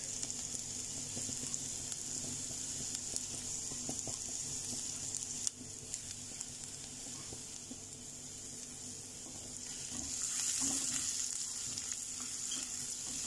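Chopped garlic sizzling in hot oil in a pan, stirred with a spatula. The sizzle steadies, then grows louder for a couple of seconds near the end.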